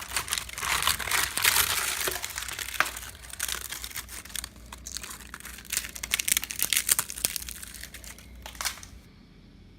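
Termites at work inside infested wood: a dense, irregular crackling and rustling, the sign of an active termite infestation eating through the wood. It thins out and stops abruptly about nine seconds in.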